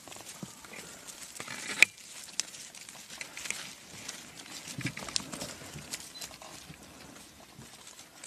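Lions and lion cubs walking on a sandy dirt track: soft, irregular padding and scuffing footfalls, with one sharp click a little under two seconds in.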